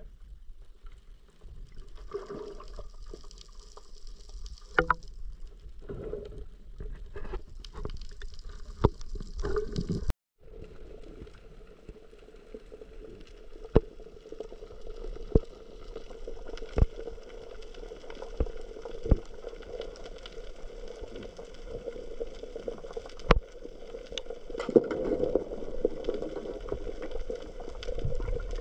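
Water sloshing and gurgling with scattered sharp knocks. About ten seconds in the sound breaks off abruptly and gives way to a steadier hum with sharp clicks.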